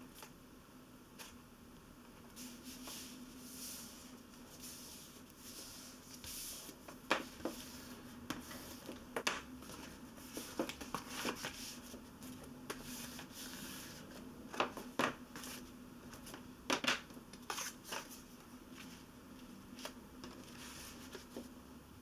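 Paper cover being folded and creased with a bone folder: paper rustling and rubbing, with a scatter of sharp crackles and taps from about seven seconds in. A faint steady hum lies underneath.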